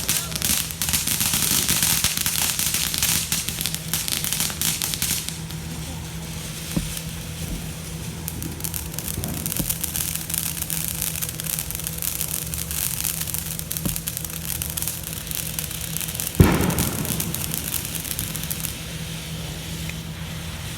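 Fireworks crackling rapidly for about five seconds, then thinning to scattered pops, with one loud bang about sixteen seconds in.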